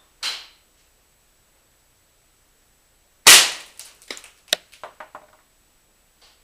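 Shots from a high-powered .177 pellet air rifle at a CRT monitor's glass screen. A smaller sharp crack comes right at the start, and the loudest crack, with a short ring, comes about three seconds in. Several quick clicks and rattles follow over the next two seconds.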